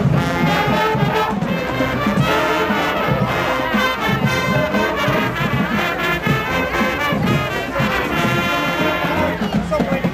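Music with brass instruments playing a melody, steady and loud throughout.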